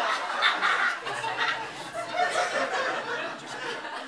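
Audience laughing at a punchline, the laughter dying down over the few seconds.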